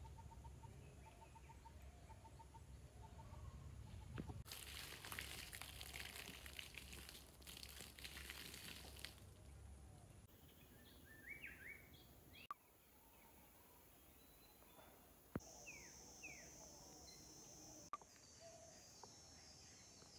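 Quiet tropical forest ambience: scattered bird chirps and calls, a few seconds of rustling noise about a quarter of the way in, and a steady high insect drone that starts about three-quarters of the way in.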